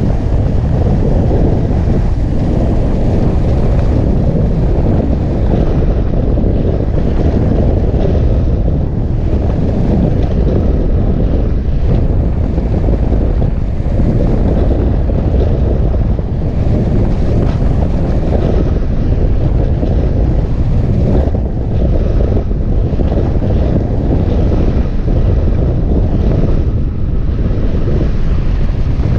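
Loud, steady rush of wind buffeting the microphone of a glider-mounted camera during hang-glider flight, a deep rumble without breaks.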